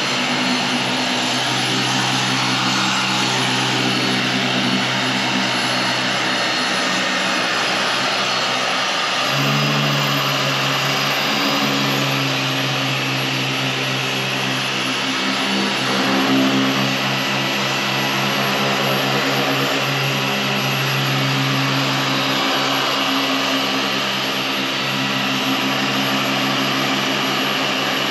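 Electric paint polisher (buffer) running steadily as it works over car paint during paint correction. Its motor hum and high whine step up in pitch about a third of the way through.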